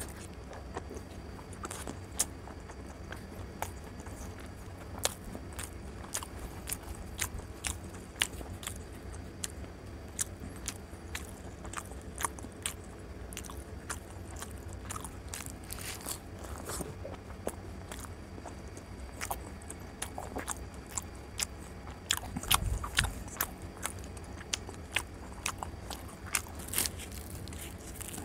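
Close-miked chewing and wet mouth clicks of someone eating luchi with egg and chicken curry, irregular and sharp, louder for a moment a little past the middle, over a low steady hum.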